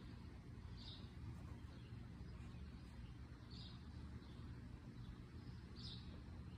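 Faint outdoor ambience: a steady low rumble, with a bird's short high chirp three times, a couple of seconds apart.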